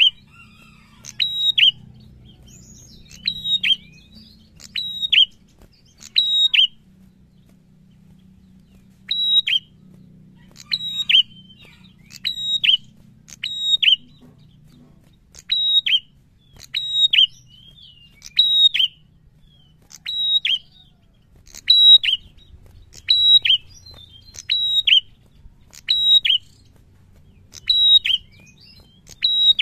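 An ashy tailorbird (sold as a 'prenjak') calling repeatedly in the agitated 'fighting' mood that keepers prize. Each call is a sharp high note followed by a quick falling note, and the calls come about every one and a half to two seconds, with one longer pause partway through.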